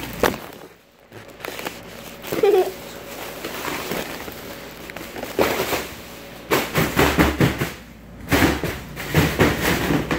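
Foil (mylar) balloons crinkling and rustling as they are grabbed and pushed around, in bursts that grow busier in the second half.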